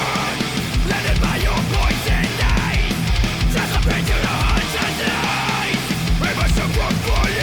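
Heavy metal song playing, with a steady kick drum beat under dense, full-band guitars and vocals.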